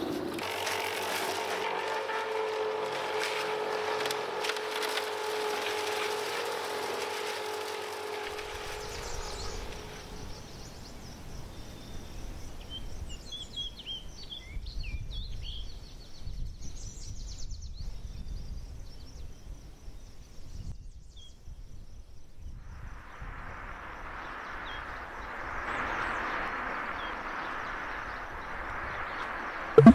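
Outdoor ambience: for about the first ten seconds a steady hum with hiss, then scattered bird chirps over a low rumble, and a band of hiss over the last several seconds.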